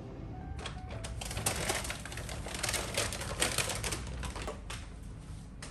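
Brown paper takeaway bag crinkling and rustling as it is carried and handled, a dense run of irregular crackles that starts about half a second in and thins out near the end.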